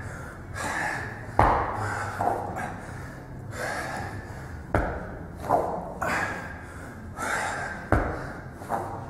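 Heavy, rapid breathing with forceful gasps and exhales from a man straining through weighted sit-ups. Three dull thuds come about three seconds apart as the weight plate touches the floor behind his head at the bottom of each rep.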